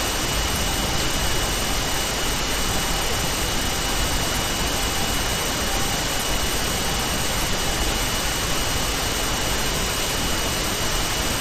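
Steady hiss of background recording noise, with a thin, high, steady whine running through it.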